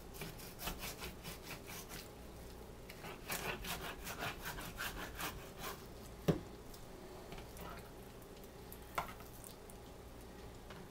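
Kitchen knife sawing back and forth through the cartilage of a rack of pork spare ribs, cutting them down to a St. Louis cut, in two runs of quick strokes. A sharp knock about six seconds in and a smaller one near nine seconds.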